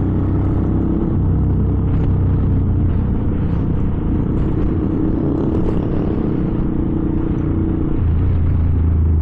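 Small 125 cc single-cylinder Honda motorcycle engine running steadily at low road speed, with slight changes in revs about a second in and near the end.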